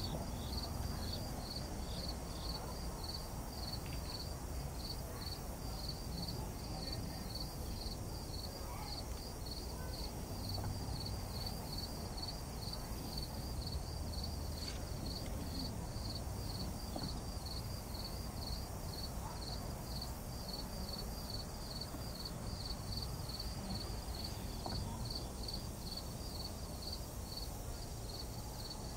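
Insects chirping in a steady, high-pitched pulse, a few chirps a second, over a low steady rumble.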